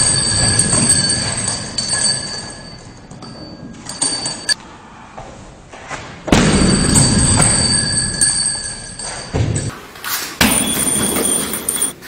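Side kicks landing on a heavy punching bag, each with a sudden thud: one about six seconds in and another about ten seconds in. The impacts are followed by a few seconds of high, steady metallic squealing as the bag swings on its hanging chains.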